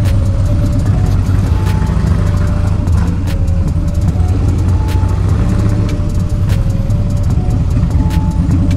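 Harley-Davidson Dyna's V-twin engine running steadily while the motorcycle is ridden. Background music with a short repeating melody plays underneath.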